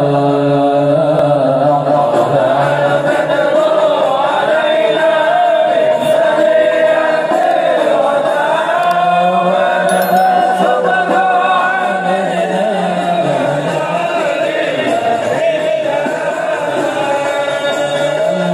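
Many male voices chanting sholawat together in one continuous, steady melody, with long held notes.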